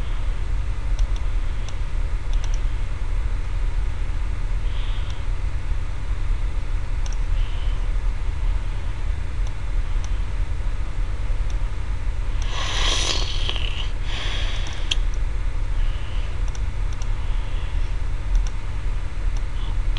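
Steady low background hum and rumble in the recording, with a few faint clicks and a short breathy rustle about two-thirds of the way in.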